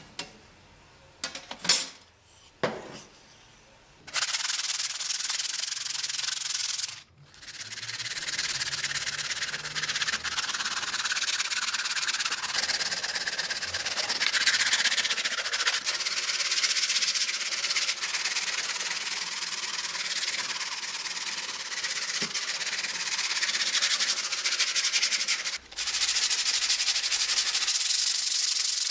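Wooden hand-saw handle clamped in a vise, being sanded by hand with sandpaper: steady scratchy rubbing strokes that start about four seconds in, with short breaks near 7 s and 26 s. A few light knocks come before the sanding begins.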